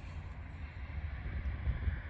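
Twin jet engines of an Airbus A320neo-family airliner climbing out after takeoff, a steady jet hiss and rumble, with wind buffeting the microphone.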